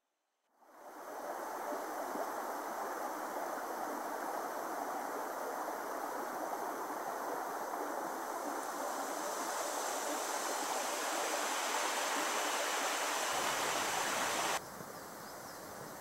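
Steady rushing of water flowing over the rocks of a shallow stream. It fades in about half a second in, and near the end it drops abruptly to a quieter rush.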